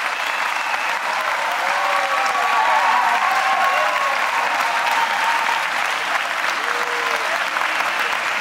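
Large audience applauding steadily, with a few cheers and shouts rising over the clapping.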